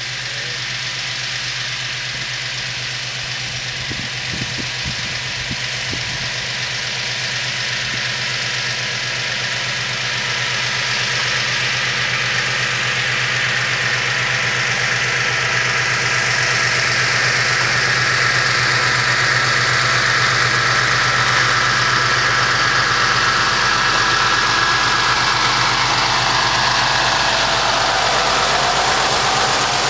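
1957 Krupp V 10 diesel locomotive running with a train as it approaches: a steady engine drone that grows gradually louder. Near the end, as the locomotive and wagons draw level, the rumble and hiss of wheels on the rails swell in with it.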